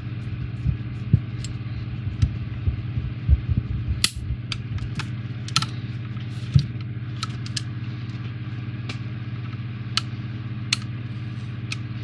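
Small clicks and taps of a screwdriver and plastic model parts as a small screw is set into a plastic hull section of a model kit, crowded in the first half and sparse later. A steady low hum runs throughout.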